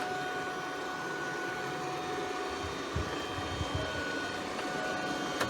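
Stirling robot vacuum cleaner running: a steady whirring hiss with a constant high whine, and a few soft low knocks a few seconds in.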